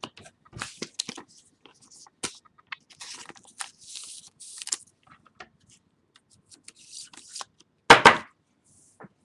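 Crinkly rustling of plastic card sleeves being handled, with small clicks throughout and one louder knock about eight seconds in.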